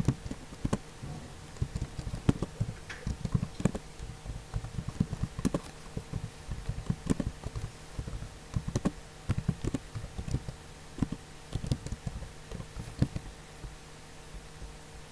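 Typing on a computer keyboard: irregular runs of keystroke clicks that stop a couple of seconds before the end, over a faint steady hum.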